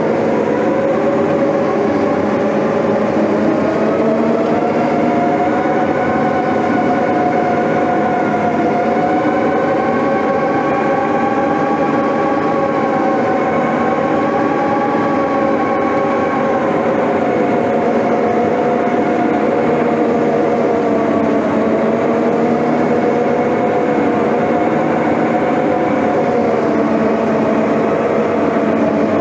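Heavy earthmoving machine's diesel engine running hard at high throttle, with a whine whose pitch drifts slowly up and down as the load changes.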